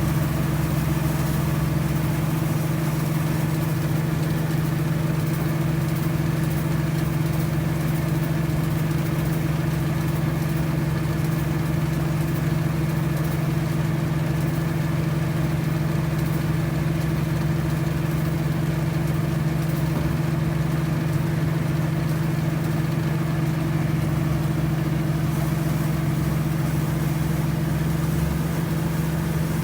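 Engine of a rice-harvesting farm machine running steadily at an even speed, a constant hum with no change in pitch.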